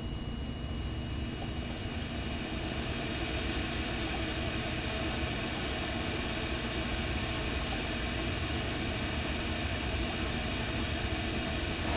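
Mac Pro's DVD drive spinning a disc along with the computer's cooling fans: a steady whirring hum that builds a little over the first few seconds, then holds.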